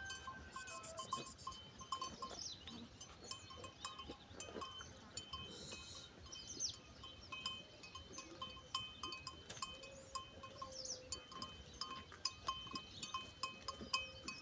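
Faint outdoor ambience of farm livestock: a bell clinks in a quick repeating pattern, with occasional short chirps.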